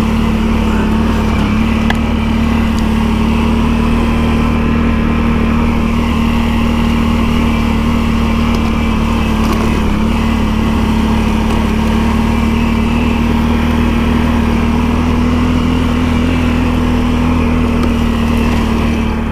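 ATV engine running at a steady speed while riding, its pitch holding constant throughout.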